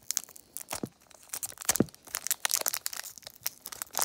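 Foil wrapper of a trading-card pack being torn open and peeled back by hand: a run of sharp crinkling crackles, with two dull knocks about one and two seconds in.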